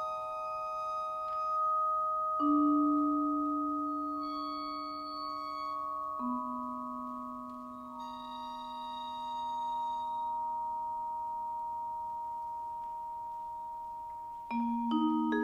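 Vibraphone playing slow, sustained music: a chord rings on for many seconds while single low notes enter a little over two seconds in and again about six seconds in, and a new cluster of notes is struck near the end.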